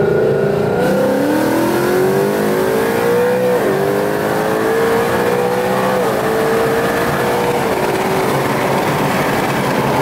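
Ford Mustang GT's Coyote 5.0 V8, with long-tube headers and aftermarket exhaust, on a hard acceleration pull. The revs climb, drop quickly at two upshifts about four and six seconds in, and the rising note fades out about eight seconds in.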